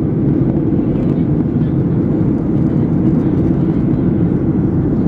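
Steady low rumble of a jet airliner heard from inside the passenger cabin: engine and airflow noise.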